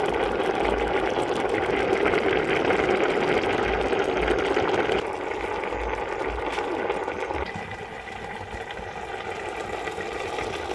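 Pot of rice and stock boiling over a wood fire, a steady bubbling hiss as the water cooks down into the rice. It drops suddenly to a softer level about halfway through.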